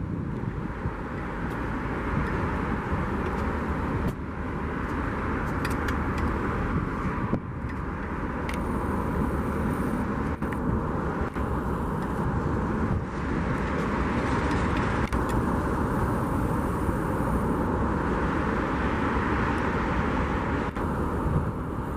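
Steady outdoor street noise of passing traffic and wind rumble, swelling and easing every few seconds.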